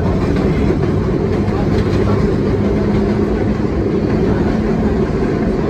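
New York City subway train running on the rails: a steady loud rumble and rattle of wheels on track, with a low steady hum for a few seconds in the middle.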